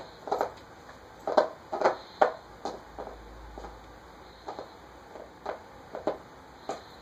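A puppy chewing on an empty plastic bottle at the cap: irregular crackles and clicks of the plastic under its teeth, with a few louder crackles about one and a half to two and a half seconds in.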